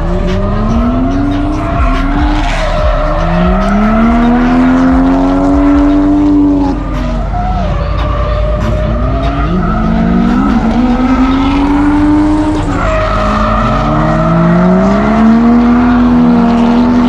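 Drift car's engine revving hard as it slides around the track, about four times climbing in pitch and then dropping back, with tyres squealing.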